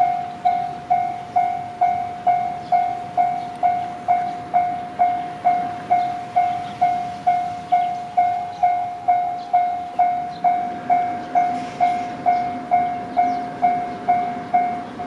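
Japanese railway level-crossing warning bell ringing, a rapid clang about twice a second, each strike fading quickly. The crossing is sounding for an approaching train, and a low rumble rises beneath the bell from about ten seconds in.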